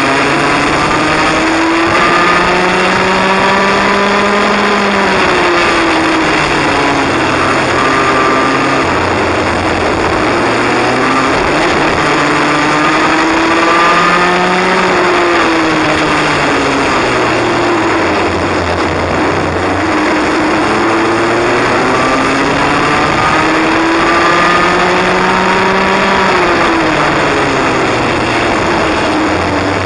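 Cadet kart engine heard onboard at speed, its note climbing steadily for several seconds as it accelerates and then falling away as it slows for a corner, three times over, with a steady rush of noise underneath.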